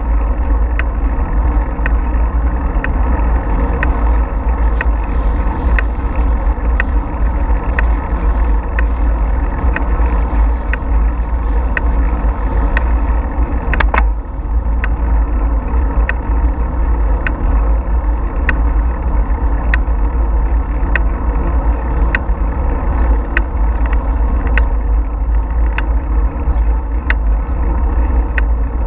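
Steady wind rumble and rolling noise from a bicycle moving along a paved trail, picked up by a GoPro camera's microphone. Sharp ticks come about once a second throughout, with a louder one about halfway through.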